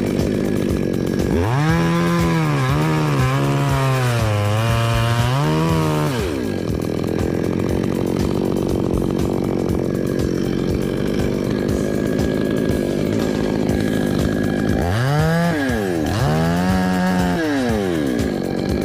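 Chainsaw revved up to full speed twice, its pitch sagging and recovering as if under load. Between the runs it drops back to a lower, steady running.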